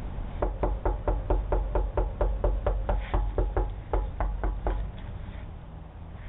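Rapid, steady knocking on a door, about four or five knocks a second for around four seconds, then stopping. It is heard through a doorbell camera's microphone.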